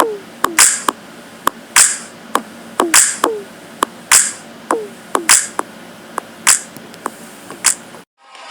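A sparse percussion beat: sharp clicks and clap-like hits in a steady rhythm, about one every 0.6 s, cutting off abruptly near the end.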